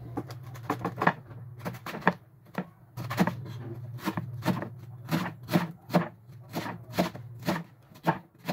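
Large kitchen knife shredding a cabbage on a wooden chopping board: repeated cuts, each ending in a knock of the blade on the board, about two a second, over a low steady hum.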